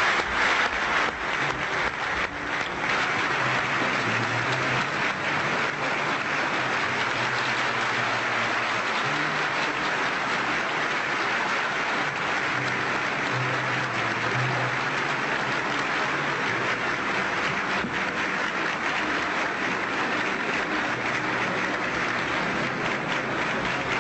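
A large audience applauding, dense and even, a little louder and sharper for the first few seconds, then settling to steady clapping. It is the ovation that greets the announcement of the Iran–Iraq agreement.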